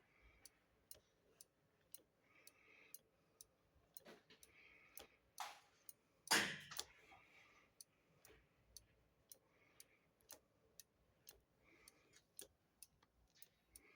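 Faint clicking, about two ticks a second, with a soft squeak every couple of seconds and two louder knocks about halfway through, from the Kawasaki ZRX 1100's brake lever and master cylinder being pumped. The system is building no pressure.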